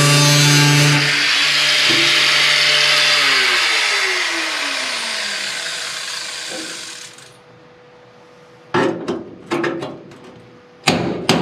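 Power tool cutting into the steel car body, then released and winding down, its hum falling in pitch over a few seconds. About a second later come four sharp hammer blows on the metal.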